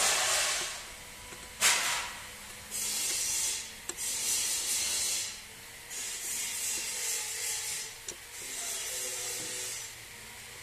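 Ratchet wrench on a long socket extension tightening the bolts of a power tiller gearbox's bearing plate: about six strokes of ratchet clicking, each about a second long, with one sharp click near two seconds in.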